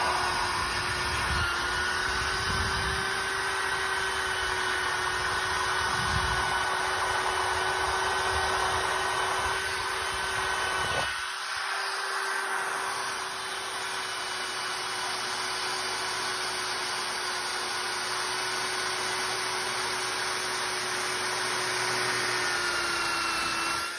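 Drill spinning a cup-style wire wheel against the rusty steel top of a Blackstone griddle, stripping the rust: a steady motor whine with the wire bristles scratching over the metal. About halfway through the low rumble drops out as the wheel's contact with the plate changes.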